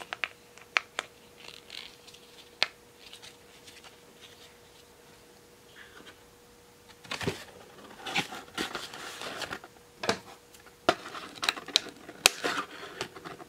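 Light plastic clicks from handling small plastic doll-stand parts. From about seven seconds in come denser snips and rustling as scissors cut through a cardboard toy box.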